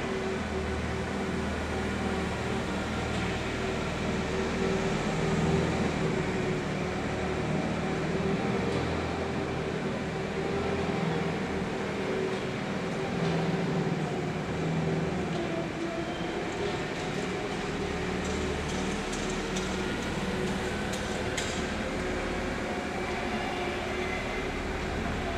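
1993 Zamboni ice resurfacer running as it drives across the ice: a steady machine hum with a low rumble underneath, its pitch dipping briefly partway through.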